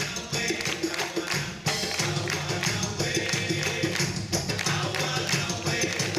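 Latin-style show music with tambourine and a steady beat, played over a park stage's sound system.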